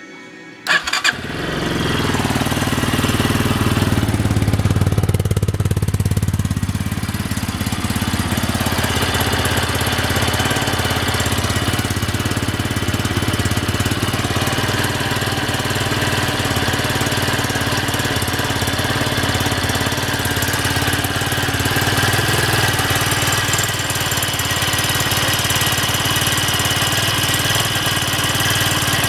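Minsk X250's 250 cc single-cylinder four-stroke engine (166FMM) starting about a second in, then running steadily at idle. The owner reports a knock from this engine once it is warmed up.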